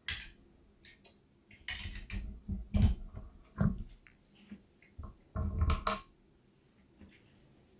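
Handling noise as a USB drive is plugged into the dock: a sharp click at the start, then several bursts of scraping and dull knocks, the loudest about three seconds in.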